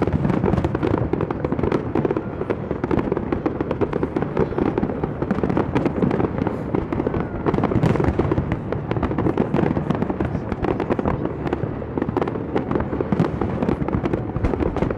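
Fireworks display: a dense, continuous barrage of bangs and crackling from many shells and ground fountains firing at once.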